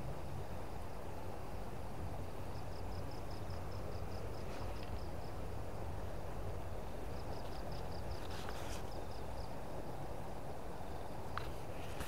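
Steady rush of a fast river current over stones. An insect trills over it in bouts of rapid, evenly spaced high chirps, each bout lasting two or three seconds, stopping and starting.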